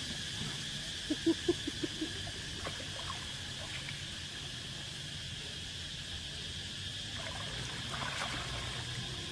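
Steady high-pitched drone of insects (crickets or cicadas) running through. About a second in comes a quick run of about six short, low-pitched pulses.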